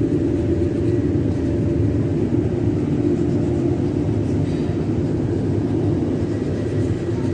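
Steady low mechanical rumble with a faint even hum, typical of tea factory machinery running.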